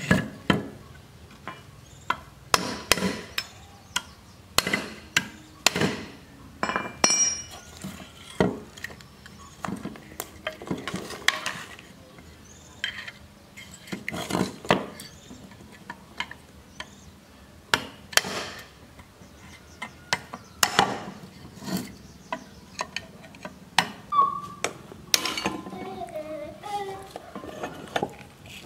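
Irregular sharp metallic knocks, taps and clinks as a screwdriver and other hand tools work on a rusted electric motor's metal housing and end cover to pry it apart.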